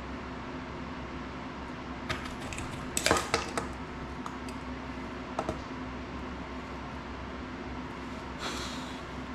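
Small tools and parts clicking and clattering on a workbench during hand soldering of FPV drone electronics, in a cluster about two to three and a half seconds in and twice more at about five and a half seconds. A brief hiss comes near the end, over a steady low hum.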